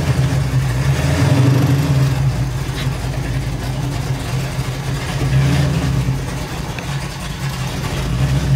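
Pontiac 455 V8 with a Quadrajet carburettor and Pypes Violator exhaust running at a steady idle as the car creeps along, heard from inside the cabin.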